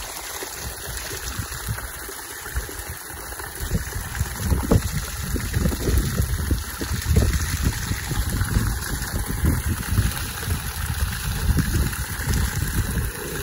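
Water gushing from a spout into the mouth of a plastic jerrycan, splashing onto the stones around it as the can fills.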